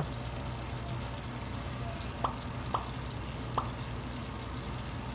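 Pork and chillies simmering in coconut milk in a stainless steel wok over a steady low hum, with three short clicks near the middle as black pepper is ground over the pan from a pepper mill.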